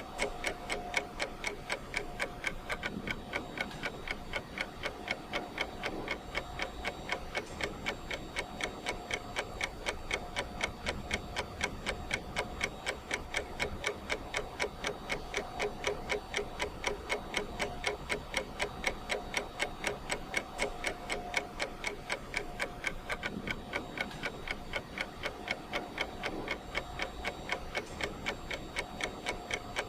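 Ticking clock sound of a countdown timer: a steady, even run of ticks.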